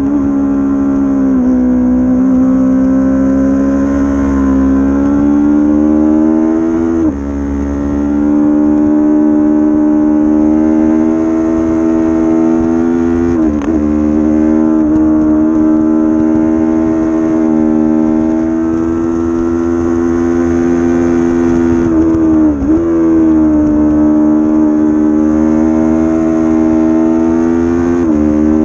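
300-class race motorcycle engine running hard at high revs, recorded by its onboard camera, its pitch climbing slowly and broken four times by a short, sharp dip, with a low wind rush underneath.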